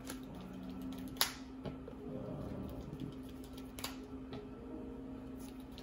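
Trading cards being handled and set down on a playmat on a tabletop, with two sharp clicks, one about a second in and one near four seconds, and a few softer taps, over a steady low hum.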